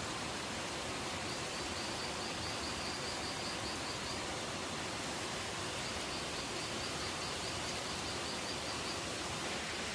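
Outdoor ambience: a steady hiss of noise, with a high, rapid run of even chirps, about five a second. The chirps come in two runs of about three seconds each, one starting about a second in and one about six seconds in.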